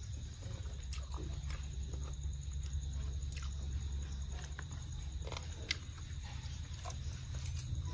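A person chewing and smacking his lips while eating cooked chicken by hand, with scattered short wet clicks over a steady low hum.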